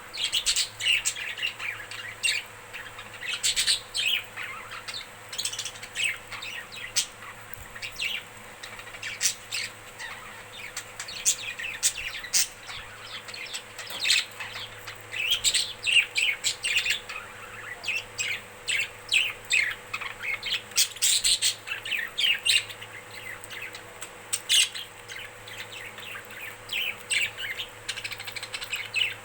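Budgerigars chattering and warbling, with rapid chirps and squeaks, the contented chatter of relaxed budgies. A faint steady hum runs underneath.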